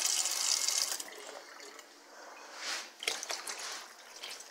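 Kitchen tap running into a plastic cup in a stainless steel sink, stopping about a second in. A few seconds later, water is poured from the cup into a slow cooker of beans in a short splashing trickle.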